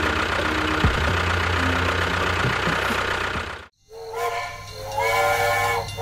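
A mini DIY tractor's motor running steadily, cut off abruptly a little past halfway. About a second later, held whistle-like chord tones of music begin and change pitch twice.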